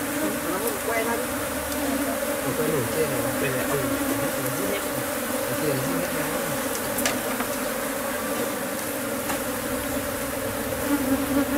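Honeybee colony in an opened wooden box hive, buzzing steadily with a dense, even hum.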